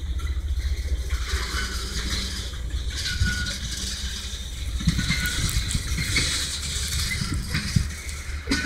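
Freight train tank cars rolling past on steel wheels: a steady low rumble and hiss of wheels on rail, with occasional knocks and a few short, faint wheel squeals.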